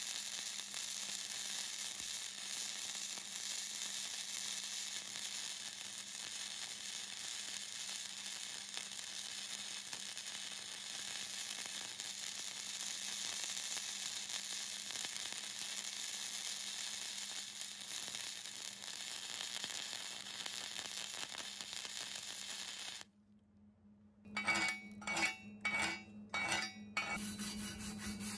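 Flux-core (gasless) wire-feed welding arc from a Hobart Handler 140, running steadily as a vertical-down bead is laid. It stops about 23 s in. After a short silence, a wire brush scrubs the fresh weld in about five quick strokes near the end.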